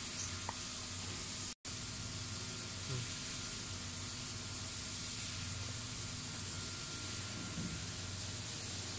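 Enclosed laser marking machine running as it marks a black plate: a steady hiss over a low hum. The sound cuts out for an instant about a second and a half in.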